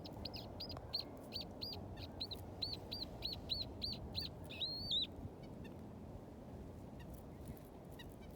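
A small wild bird calling a fast run of short, arched, high notes, about three a second, ending about five seconds in with one longer, drawn-out note. A steady low hiss lies underneath.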